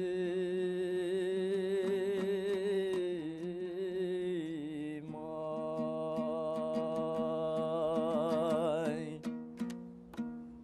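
Male voice singing a Kazakh folk song over a strummed dombra. It holds one long note with vibrato for about five seconds, then a second long note, before fading out near the end as the song closes.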